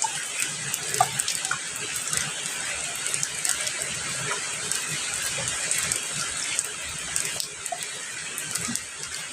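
Steady rain falling: an even hiss dotted with many sharp drip and spatter ticks of individual drops.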